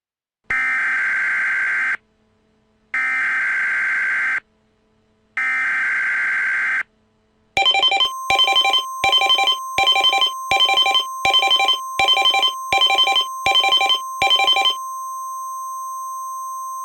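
Emergency Alert System tones: three short screeching digital header bursts, about a second apart, then a steady Weather Radio-style alert tone with a pulsing beep laid over it for about seven seconds. After the beeps stop, the steady tone carries on alone.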